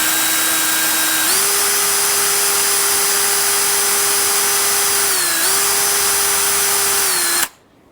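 Electric drill spinning a wire brush against a rusty steel wheel bolt, scrubbing the rust off: a steady motor tone with a scratchy hiss. The motor speeds up about a second in, dips briefly around five seconds, then winds down and stops near the end.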